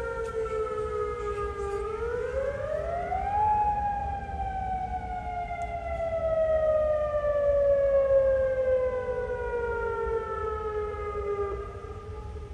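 Outdoor tornado warning siren sounding its monthly test: a wailing tone that dips, rises sharply about two seconds in, then falls slowly for several seconds and starts to rise again near the end. A second, fainter siren tone rises and falls out of step with it.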